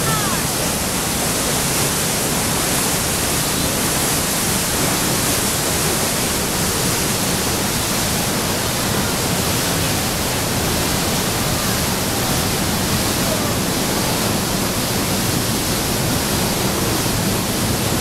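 Steady rush of a waterfall pouring through a narrow rock gorge into a pothole, even and unbroken.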